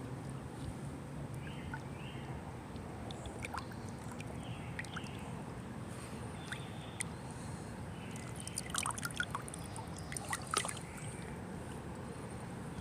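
Shallow creek water trickling and sloshing in a steady low rush, with a cluster of sharp clicks about two-thirds of the way through.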